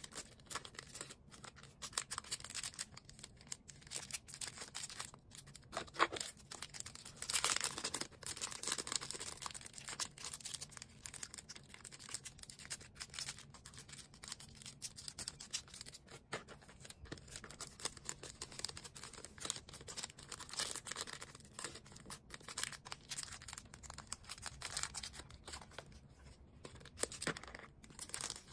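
Hands packing small items into packaging: continuous rustling and crinkling of plastic bags and paper, with frequent short taps and clicks.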